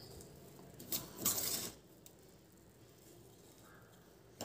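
Powdered jaggery tipped from a spoon into a steel saucepan of simmering water: a light clink about a second in, then a short rustle, then only faint low background sound.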